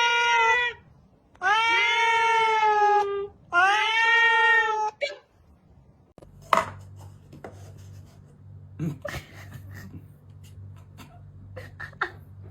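A cat meowing loudly in long drawn-out calls: the end of one and then two more, each about one and a half seconds long and holding a steady pitch. After that come scattered soft clicks and knocks over a low hum.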